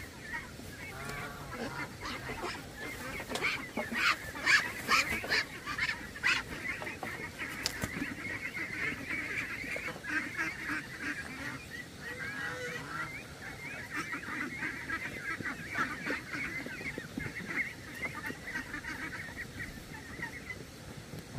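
A flock of penned domestic geese honking and calling continuously, many birds at once, loudest a few seconds in.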